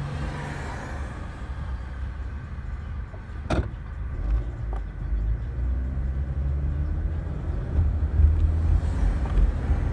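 Car cabin noise while driving: a steady low rumble from the engine and road. There is a single sharp click about three and a half seconds in.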